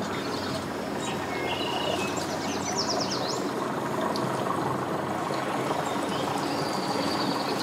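Yamaha 200 outboard motor idling as the boat eases away from the dock, a steady low hum over water noise. A bird chirps rapidly about three seconds in.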